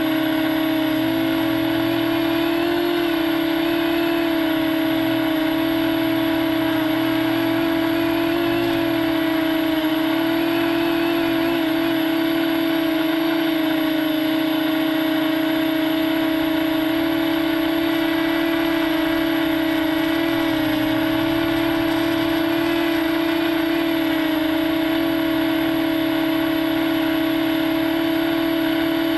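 FPV quadcopter's brushless motors and propellers buzzing steadily, heard through the GoPro mounted on the quad, the pitch wavering slightly as the throttle shifts in flight.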